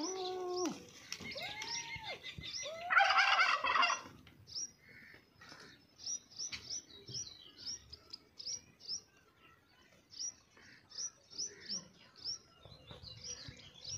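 Birds calling: a few loud, drawn-out fowl calls in the first four seconds, then short high chirps of small birds about once or twice a second.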